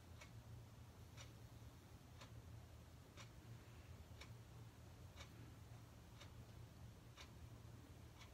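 Faint ticking of a clock, one tick about every second, over a low steady hum: a quiet room's background.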